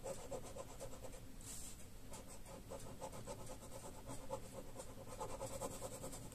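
Ballpoint pen scratching back and forth on paper in quick, short repeated strokes while cross-hatching.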